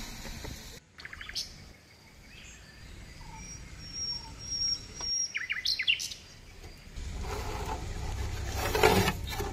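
Small birds chirping in short bursts of quick falling calls, with a thin high whistle between them. A steady low rumbling noise comes in about seven seconds in and is the loudest part.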